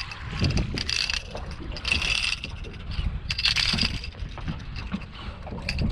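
A small speckled trout splashing at the surface as it is reeled in to the boat, several short splashy bursts over a steady rumble of wind on the microphone.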